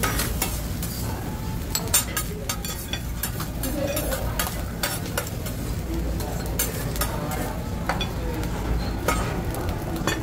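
Food sizzling on a hibachi flat-top griddle, with frequent sharp clicks and scrapes of metal spatulas on the steel, over a steady low hum.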